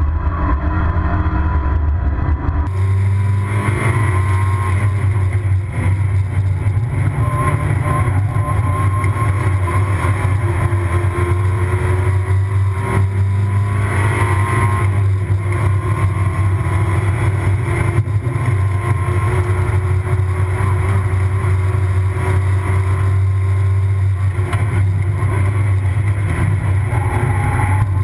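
Mazda MX-5 race car's four-cylinder engine heard from inside the cabin while driving, a heavy low drone with the engine note rising and falling. About three seconds in, the sound turns brighter and hissier.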